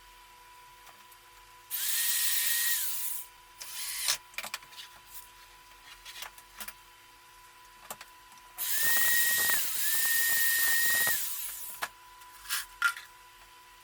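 Electric hand drill running in two bursts, one of about a second and a half and a later one of about two and a half seconds, each spinning up and winding down. Its whine dips briefly partway through the second burst. Small clicks and knocks sound between the bursts.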